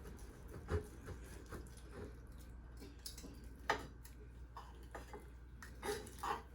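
Cooked chicken being cut open to check the cross-section: faint scraping with a few light clicks and knocks, the sharpest about two-thirds of the way in.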